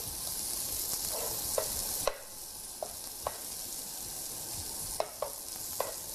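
Julienned onions sizzling in olive oil in a nonstick frying pan as they begin to fry for a soffritto, stirred with a spoon that knocks against the pan several times. The sizzle drops a little about two seconds in.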